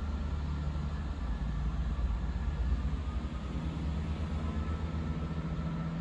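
Diesel multiple unit pulling out of the station: a steady low engine drone with a faint higher whine, the drone growing a little stronger about halfway through.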